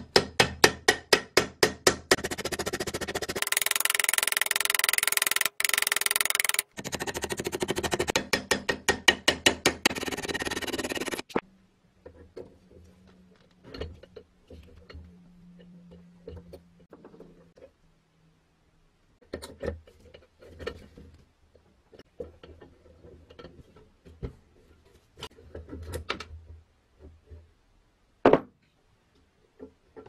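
Small hammer tapping rapidly and repeatedly, about five strikes a second, on the shaft of an antique cast-iron coffee grinder's gear mechanism, for about eleven seconds. Then come quieter clicks and knocks of metal parts being handled, with one sharp click near the end.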